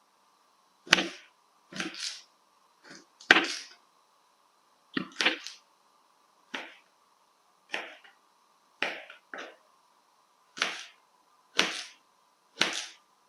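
Knife chopping carrots into strips on a wooden cutting board: separate sharp knocks about once a second, some in quick pairs.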